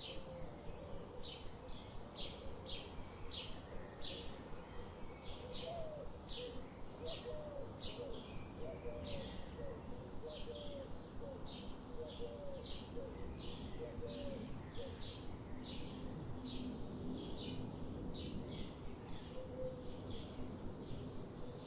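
Birds chirping: short high chirps repeat about twice a second, with lower sliding notes in the first half, over a steady low background hiss.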